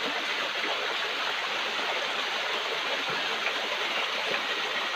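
Steady rush of a stream's water flowing over rocks.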